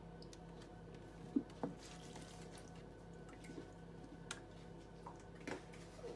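Milk pouring faintly from a plastic jug into a bowl of cake batter, with a few soft knocks.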